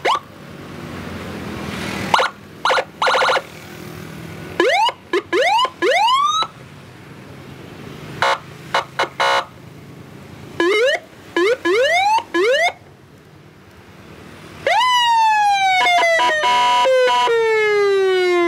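Motorcycle-mounted nine-tone electronic police-escort siren sounding through its loudspeaker as it steps through different tones. It gives short buzzing horn blasts, several quick rising whoops, and near the end a long falling wail.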